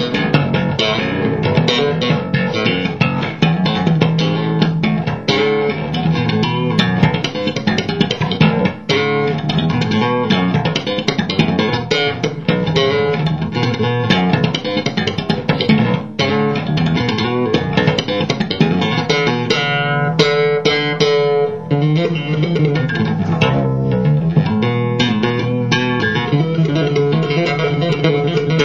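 Electric bass guitar played solo through a small combo amplifier, slapped and tapped in a fast run of sharp, percussive notes without a break.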